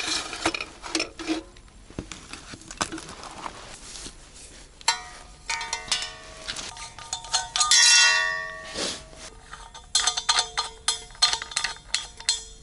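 Metal clanks and clicks from handling a red steel propane cylinder and its hose fittings. A ringing metallic tone sounds in the middle, a short rush of noise comes about eight seconds in, and a run of quick clicks follows near the end.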